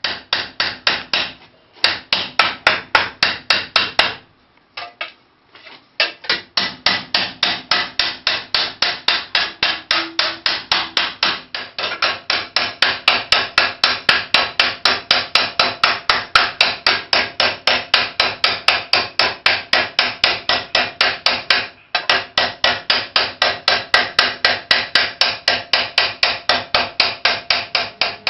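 MIG welder laying a butt weld in thin sheet steel in short stitch pulses, the arc crackling in even bursts about four times a second. It pauses briefly near the start, for a couple of seconds a few seconds in, and once more about two-thirds of the way through.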